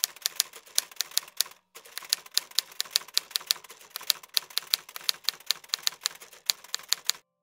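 Typewriter keys clacking in a quick, uneven run of sharp strokes, about four or five a second, with one short break: a typing sound effect timed to on-screen text appearing letter by letter. It stops just before the end.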